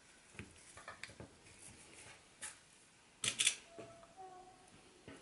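Small handling noises of pinning Velcro tape onto terry cloth on a wooden table: light scattered clicks and taps, with a louder cluster of taps about three seconds in.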